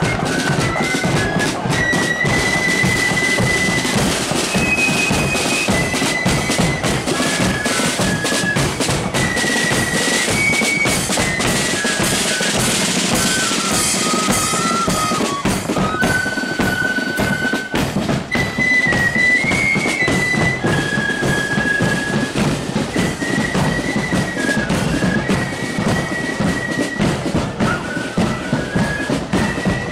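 Marching flute band playing: flutes carrying one tune in unison over rapid side-drum beating and a bass drum.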